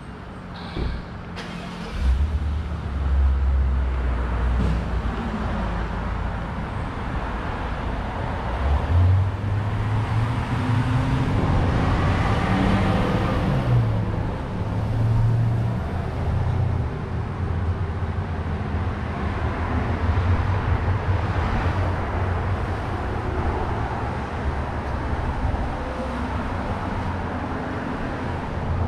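Downtown street traffic: a motor vehicle's engine running close by, starting about two seconds in, its pitch stepping up and down. Broad road noise swells around the middle, as of a vehicle passing.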